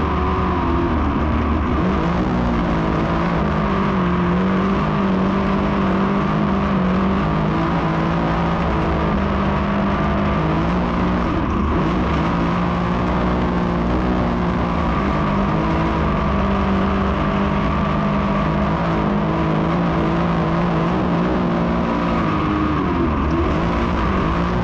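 Dirt modified race cars' V8 engines running hard under green. The engine note drops away briefly about every ten seconds as they lift for the turns, then climbs again.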